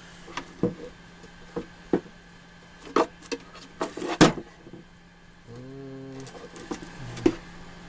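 Scattered knocks and clicks of parts being handled during hands-on assembly, the loudest about four seconds in. A short, steady low hum lasts about a second near six seconds in.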